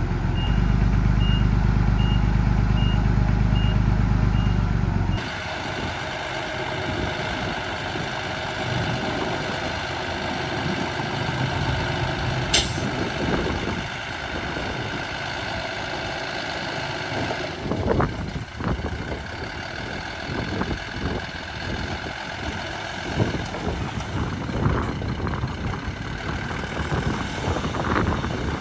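Miniature dump truck's engine running steadily with a reversing beeper sounding at an even pace for the first few seconds. After about five seconds the sound changes abruptly to a quieter, rougher grinding with scattered crackles and one sharp click about halfway through.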